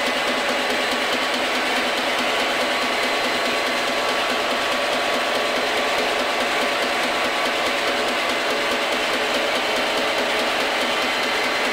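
Small bench milling machine running steadily with a constant whine from its motor and gearing while drilling holes in a brass cover.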